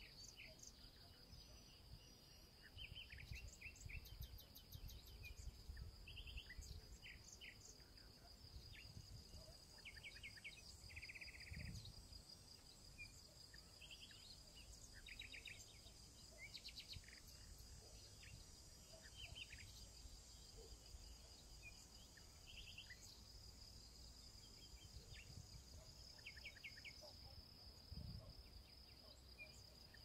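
Faint dusk countryside ambience: a steady high-pitched insect trill, scattered short bird chirps and trills, and a low wind rumble on the microphone.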